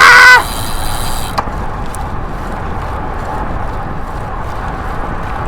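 Steady rush of wind and bicycle tyres rolling over a sandy, rocky dirt road on a descent. A brief, loud, high-pitched squeal comes at the very start.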